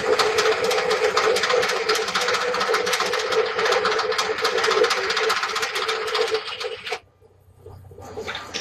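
Table saw running: a steady hum with a dense, rapid rattle. It cuts off abruptly about seven seconds in, and a quieter sound starts near the end.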